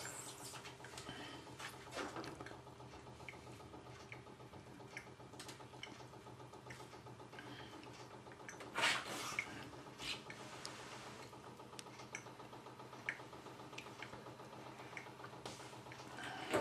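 Faint dripping and sloshing of hot water in a photo tray as a soaked magenta pigment sheet is slowly peeled up to develop a carbon print layer. There is a brief louder swish of water about nine seconds in, over a steady low hum.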